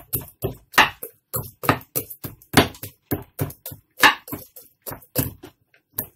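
Kitchen knife stabbing repeatedly into a whole raw chicken, short sharp knocks about four a second that stop shortly before the end.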